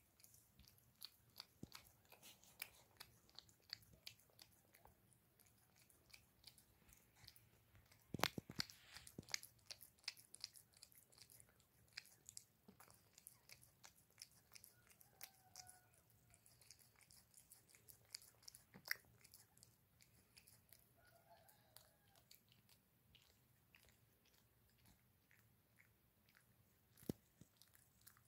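A cat eating soft wet food from a small tin: a faint, quick run of wet chewing and lapping clicks, with a cluster of louder clicks about eight seconds in and single louder ones near nineteen and twenty-seven seconds.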